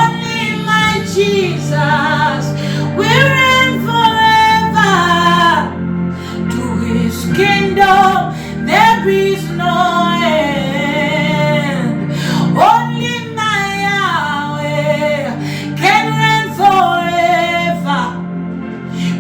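A woman singing a slow worship melody in long phrases, her notes sliding and wavering, over steady sustained instrumental chords.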